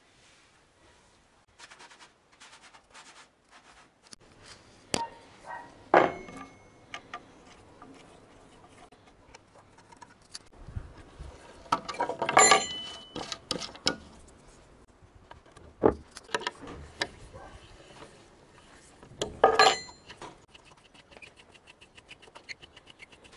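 Steel wrench, nuts and bolts clinking and knocking against each other and a wooden workbench as bolts are fitted through boards and tightened by hand: scattered light clicks with a few sharp louder clanks, and a quick run of light ticks near the end.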